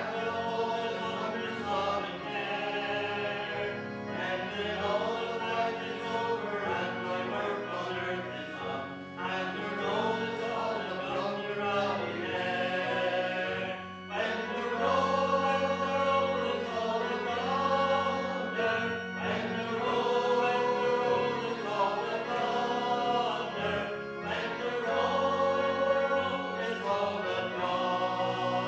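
A congregation singing a hymn together with instrumental accompaniment, a little louder from about halfway.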